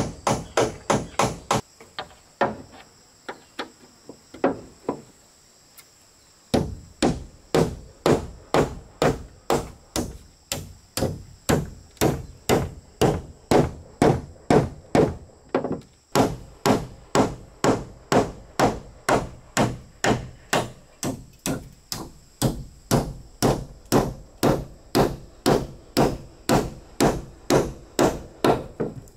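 Repeated blows of a hand tool striking building material. A quick burst at the start is followed by a few faint blows, then a steady, even run of loud blows at about two a second from about six and a half seconds in.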